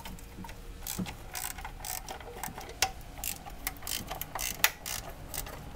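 A 1/4-inch drive ratchet clicking in quick, uneven runs as valve cover bolts are backed out.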